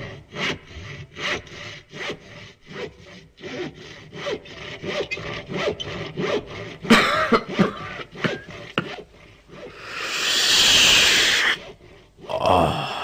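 Rhythmic rasping strokes, about two to three a second, like a hand saw working through wood, which stop after about seven seconds. A few short throaty sounds follow, then a loud hiss lasting about a second and a half near the end.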